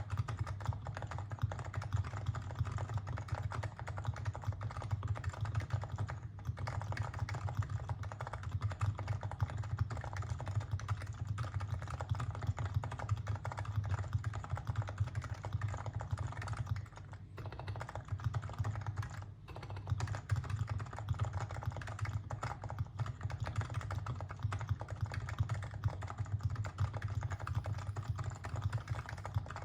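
Continuous typing on a Topre Realforce R2 PFU keyboard with 45 g electrostatic capacitive rubber-dome switches, Krytox 205g0-lubed sliders and Deskeys light blue domes, housed in a Norbaforce Mk II case. The rapid run of keystrokes pauses briefly twice, a little past the middle.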